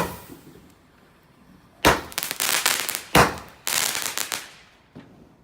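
Garden fireworks going off: a sharp bang at the start, then two more bangs about two and three seconds in, each followed by a burst of crackling, and a small pop near the end.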